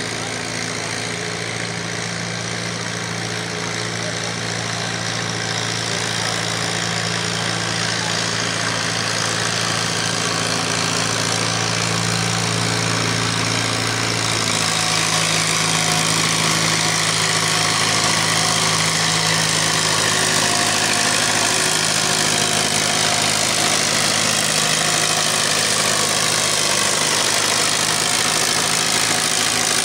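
Farmall tractor engine pulling hard under load as it drags a weight-transfer sled, a steady engine note that grows louder over the first half of the pull and then holds, with more hiss from about halfway.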